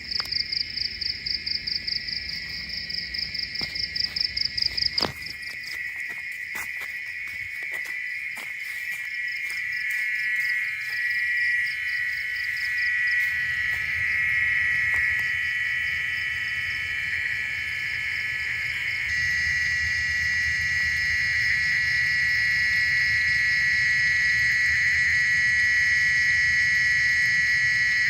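Loud night-time jungle chorus of calling animals, which the uploader takes for tree frogs. It is a dense, steady high-pitched trilling. A rapid pulsing call stands out over it for the first five seconds, and the chorus grows louder toward the end.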